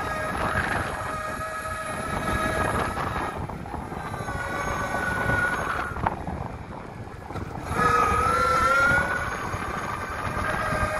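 Electric mountainboard's motors whining over the rough rumble of its wheels rolling. The whine fades briefly about six seconds in, then comes back louder with a rising pitch about eight seconds in.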